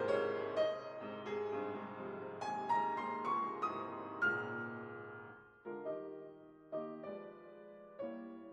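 Background piano music: single notes and chords struck one after another and left to ring, thinning out about five seconds in before new notes come in.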